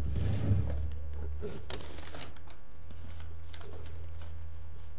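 Room tone: a steady low hum with a few faint rustles and clicks scattered through it.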